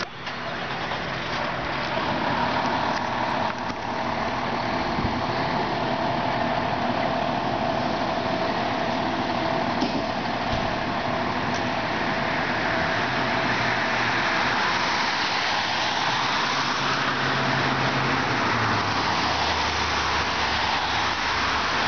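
Fire apparatus engine running at idle, a steady engine sound whose low hum drops in pitch near the end.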